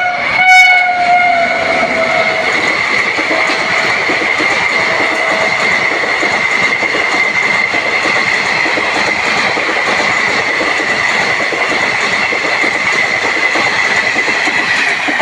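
Passenger train horn sounding at the start and fading out over the first two seconds, then the train running past close by: a loud steady rush and rattle of wheels on the rails with a high steady ring over it.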